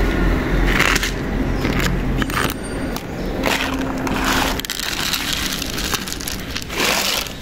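Dry cat kibble poured from a plastic bottle into a plastic bowl in about four short rushes.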